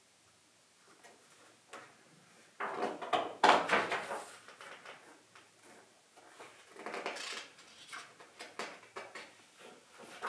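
Pages of a cookbook being turned and handled: paper rustling, loudest about three seconds in and again around seven seconds, with small taps and flicks in between.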